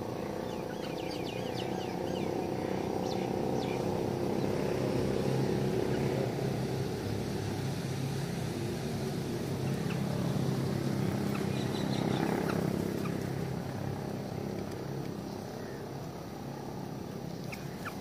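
Small birds chirping in short, scattered calls, thickest in the first few seconds, over a low steady drone that swells through the middle and fades toward the end.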